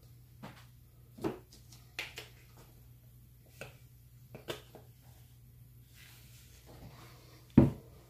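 Scattered small taps and clicks of craft materials being handled on a work surface, with one louder knock about seven and a half seconds in, over a steady low hum.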